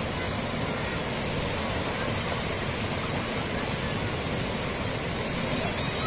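Water rushing steadily over a small rocky waterfall and down a stream.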